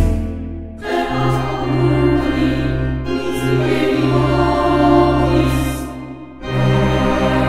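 Choral music: a choir singing held notes, with two short breaks between phrases.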